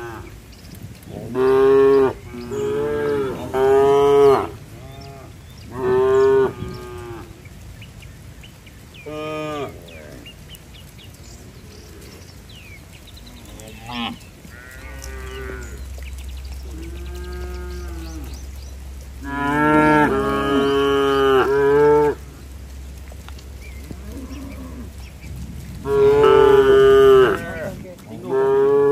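Several domestic cattle mooing: about a dozen calls of varying length with pauses between, some overlapping. The loudest come a couple of seconds in, around two-thirds of the way through, and near the end. A low steady drone joins about halfway through.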